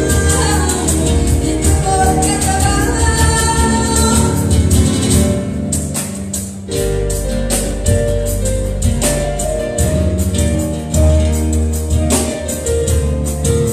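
Live band music: a woman sings over acoustic guitar, keyboard and drums for about the first five seconds, then after a brief dip the band plays on without her voice, drums keeping a steady beat.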